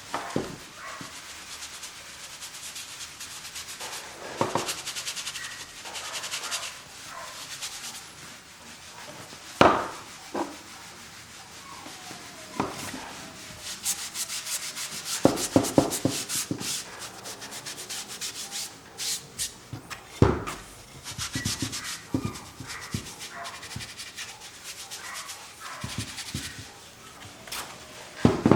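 Acrylic paint being worked onto a canvas: irregular scratchy, rubbing strokes, some in quick runs, with a couple of sharp knocks, the loudest about ten seconds in.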